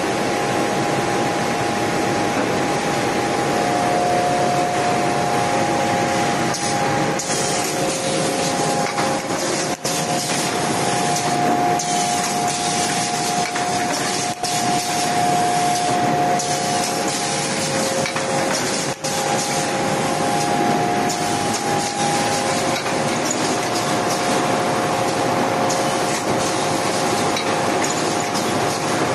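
Automatic A4 roll-to-sheet cutting and inline ream-packing line running: a steady mechanical din with a few held tones, broken now and then by short bursts of hiss.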